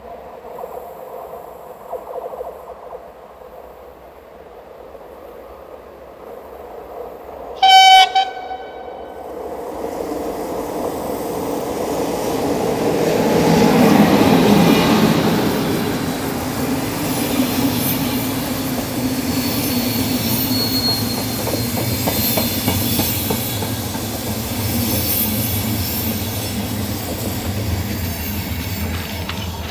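CFR electric locomotive hauling a passenger train: one short loud horn blast about eight seconds in. Then the rumble of the locomotive passing close by, loudest a few seconds later, and the steady roll of the coaches' wheels on the rails.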